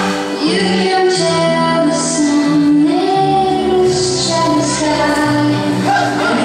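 Latin dance music with a woman singing, played loud for a formation routine.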